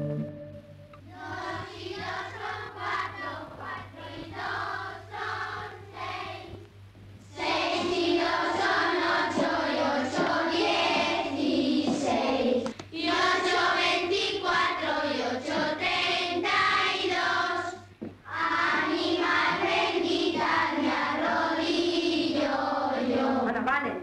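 A class of young schoolgirls chanting arithmetic sums in unison in a sing-song rhythm, in Spanish ('six and two is eight, plus eight is sixteen'). The chant is faint at first and becomes louder about seven seconds in.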